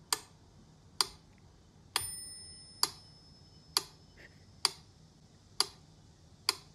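Slow, even ticking, about one tick a second, with a single bright bell-like ding about two seconds in that rings on and fades.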